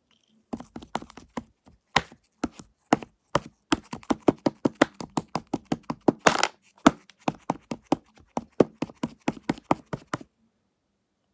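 Homemade glue slime being kneaded and folded by hand, giving a rapid series of sharp clicks and pops, about four a second, that stops suddenly near the end.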